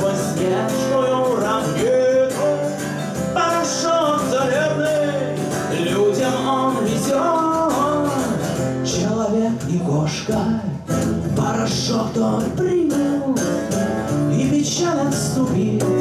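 Instrumental break on acoustic instruments: a steel-string acoustic guitar strumming chords under a gliding melodic lead from a slide guitar played flat on the lap and a harmonica.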